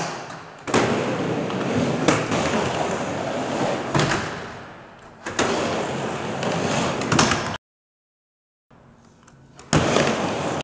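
Skateboard rolling across the ramps, its wheels making a steady rushing noise, with several sharp clacks and slams as the board hits the ramp and coping. The sound cuts out abruptly a couple of times.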